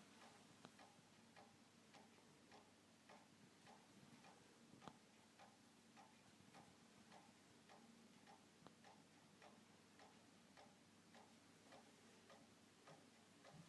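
Faint, even ticking, about two ticks a second, over a light hiss.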